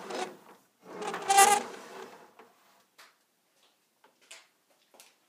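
Squeaking creak lasting about a second as corrugated stainless steel gas tubing (CSST) is pulled off its spool on a pipe axle, followed by a few light scuffs and footsteps.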